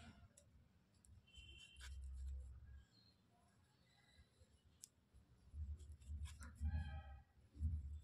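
Faint clicks and rubbing of a crochet hook being worked through wool yarn by hand, with low bumps of handling close to the microphone. A brief pitched sound comes in about seven seconds in.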